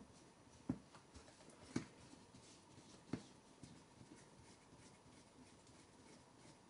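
A few light clicks and taps of small hand tools and metal parts being handled, four sharper clicks in the first three seconds, then only faint scattered ticks.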